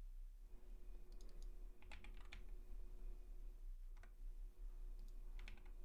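Faint computer keyboard typing in a few short bursts of keystrokes, over a low steady hum.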